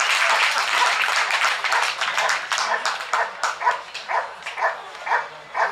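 Audience applause dying away, then a German Shepherd dog barking in a steady rhythm of about two barks a second. It is guarding a motionless protection helper, barking at him while staying in front of him.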